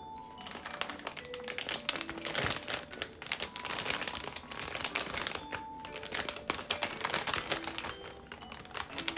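Thin clear plastic bag crinkling and rustling in irregular crackles as it is handled and pulled off a plush teddy bear, over background music.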